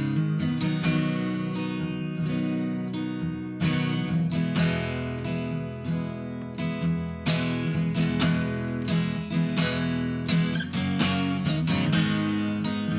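Acoustic guitar strumming chords, an instrumental passage with no singing.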